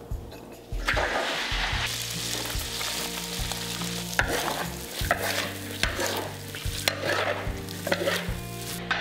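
Chopped dried chilies and garlic frying in hot oil in a wok: a loud sizzle starts about a second in, then a spatula stirs and scrapes the wok at roughly one stroke a second.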